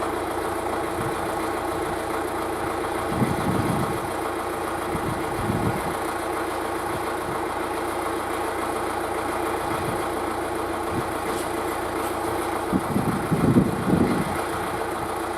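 Vehicle engine running steadily at low revs. A few short low thuds come over it, about three seconds in, around five and a half seconds, and several close together near the end.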